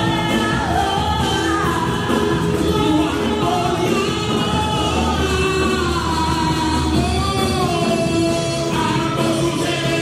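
Live gospel worship music: a church band with drums, bass, electric guitar and keyboards plays continuously while several singers, female and male, sing into microphones.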